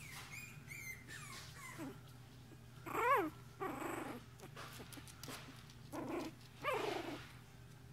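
Bichon Frise puppies growling and yelping at play: two short, high yelps that rise and fall in pitch, about three seconds in and again near seven seconds, with softer rough growls between.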